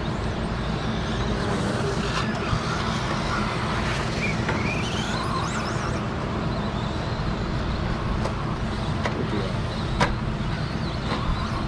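Electric RC stadium trucks racing on a dirt track: motors whining up and down in pitch as they accelerate and brake, over a steady low rumble, with a couple of sharp knocks.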